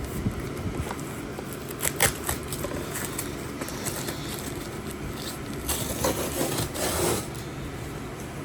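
Hands opening and rummaging in plastic shipping packaging: scraping and crackling, with sharp clicks about two seconds in and a longer rustle around six to seven seconds.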